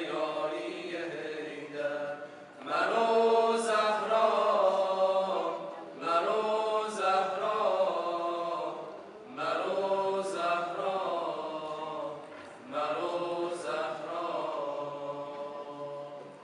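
Tavashih group of male voices chanting a devotional nasheed a cappella, in four drawn-out phrases that each begin loud and fade, about every three seconds.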